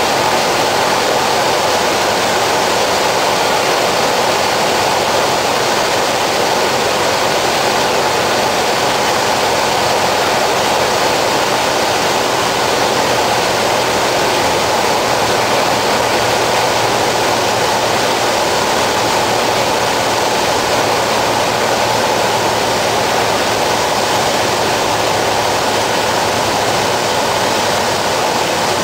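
Cessna 150's four-cylinder Continental O-200 engine and propeller heard from inside the cabin: a steady, loud drone mixed with rushing air on the approach to landing.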